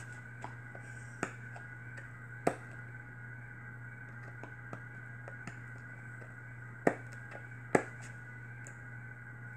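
Fingernails picking at the seal of a cardboard smartphone box, giving a few sharp clicks and taps, the two loudest close together near the end, over a steady low hum.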